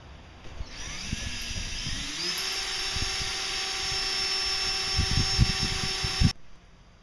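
Cordless drill spinning up with a rising whine, then running at a steady speed with its bit working at a joint in the aluminium wakeboard tower tubing. A few low knocks come near the end, and then the drill stops suddenly.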